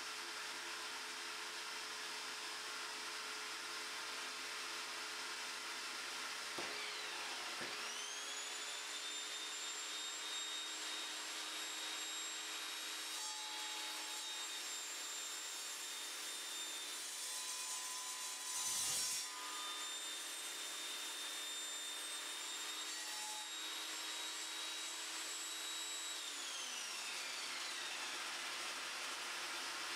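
Evolution Rage 5-S 10-inch table saw started about a quarter of the way in, its motor rising to a steady whine. The blade cuts through a 4x2 oak block about two-thirds through, then the saw is switched off and winds down near the end. A steady hiss runs underneath throughout.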